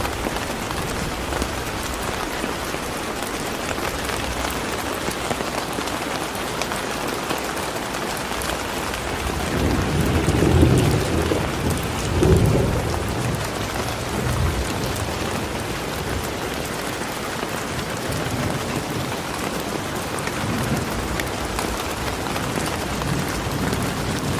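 Steady rain falling, with a low rumble of thunder swelling twice around the middle.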